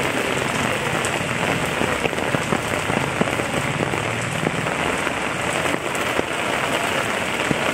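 Steady rain falling on standing floodwater: a dense, even hiss with many scattered drop ticks.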